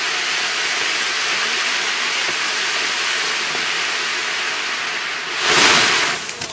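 Firework ground fountains hissing steadily as they spray columns of sparks. About five seconds in, a louder rush of hiss lasts under a second as a bigger fountain flares, followed by the first few crackles.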